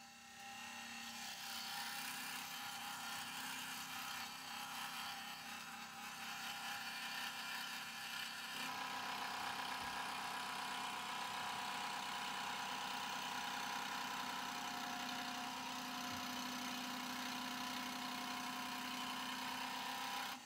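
Electric scroll saw running steadily, its reciprocating blade cutting through plywood.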